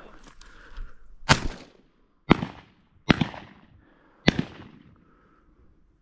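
Shotgun shots: four sharp blasts in about three seconds, each dying away quickly.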